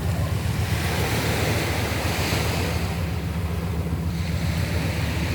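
Sea waves breaking and washing ashore: a hiss that swells about a second in and eases off near the end, over a steady low rumble of wind on the microphone.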